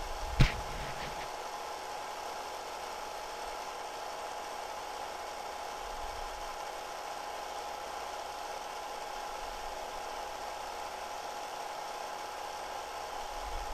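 Steady machine-like hum and hiss with a thin constant whine, and one sharp click about half a second in.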